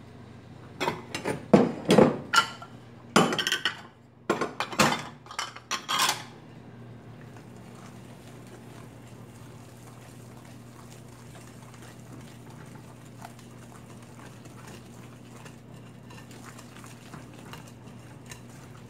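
A wire whisk and bowls clink and knock against a glass mixing bowl in a quick run of loud clatters over the first six seconds or so, as grated carrot is tipped in. After that comes only faint, soft hand-stirring of thick carrot-cake batter over a steady low hum.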